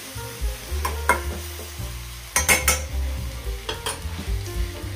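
Steel spoon stirring chopped tomatoes and onions in a stainless-steel pan of hot oil, with sizzling and scraping throughout. A few sharp clinks of metal on metal, a quick cluster of them about halfway through, as the spoon knocks against the pan.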